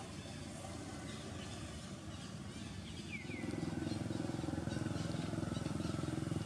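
A low, pulsing engine rumble, like a motorbike running, that grows louder about three seconds in, with two short high descending bird chirps at the same moment.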